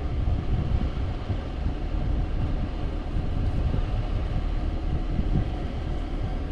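A van's engine and road noise heard from inside the cab as it rolls slowly forward, a steady low rumble.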